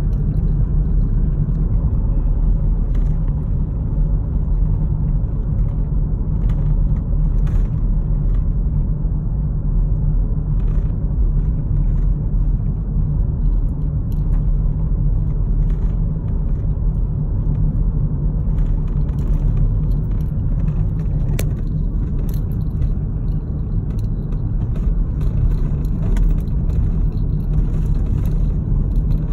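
Steady low rumble of a car driving along a rough country road, heard from inside the cabin, mostly tyre and road noise. Scattered light clicks run through it.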